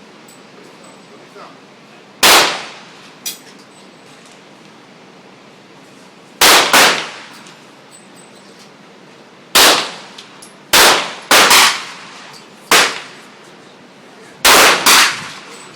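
About ten pistol shots from a Glock 22C, a ported .40-calibre handgun, fired singly and in quick pairs at an uneven pace, each a sharp crack with a short echoing tail.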